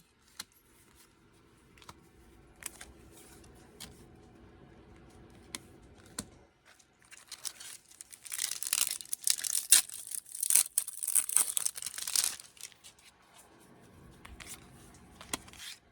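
A foil Pokémon card booster pack wrapper being torn open and crinkled by hand. A few light clicks and rustles come first, then about five seconds of dense, loud crinkling and tearing starting around seven seconds in, fading back to soft rustles.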